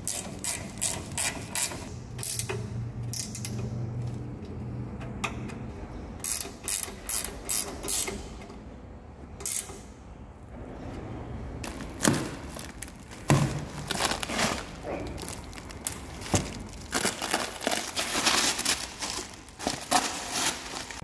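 Hand ratchet spanner clicking in repeated strokes as bolts are run up and tightened, in bursts of a few strokes a second with pauses between, busiest in the second half.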